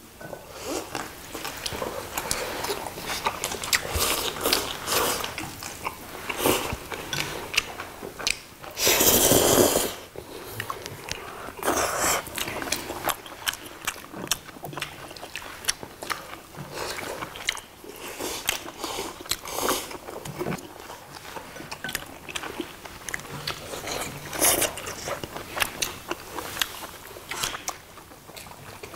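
Close-up eating sounds: several people chewing, biting and slurping spicy noodles, bean sprouts and braised fish, with many small wet clicks and crunches. A long, loud slurp about nine seconds in, and a shorter one about three seconds later.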